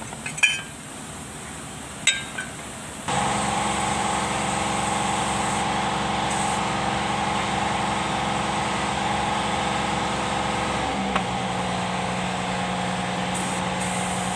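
A couple of sharp metal clinks as the steel propeller-shaft tube and its clamp are handled. From about three seconds in, a steady engine takes over, its note shifting a little before the end.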